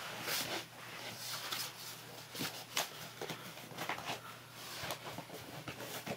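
Cardboard shipping box being handled and its flaps worked open: irregular scraping and rustling of cardboard with a few sharp knocks.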